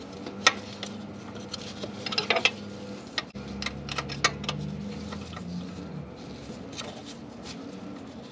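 Wrench clinking and clicking against the oil temperature sensor fitting as it is snugged into the engine, a scattering of sharp metal-on-metal ticks.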